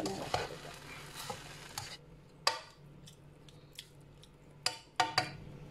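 A spatula stirs and turns cooked rice with vegetables in a non-stick kadai, with a soft frying hiss for the first couple of seconds. After that come a few sharp taps of the spatula against the pan: one in the middle and three close together near the end.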